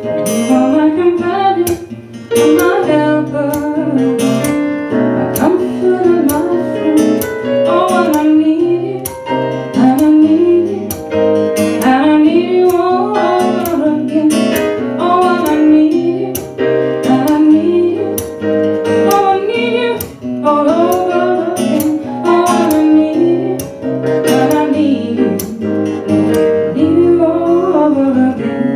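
A woman singing live over a strummed acoustic guitar with keyboard accompaniment.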